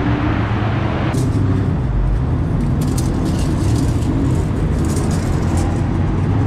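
Steady drone of racing engines running, turning duller about a second in.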